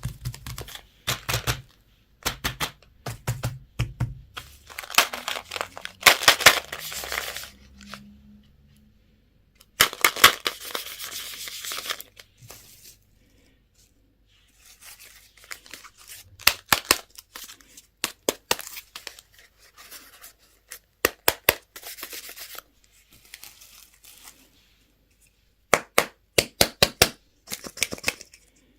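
Candy wrappers being torn open and crinkled in bursts, between many sharp clicks and snaps of packaging being handled.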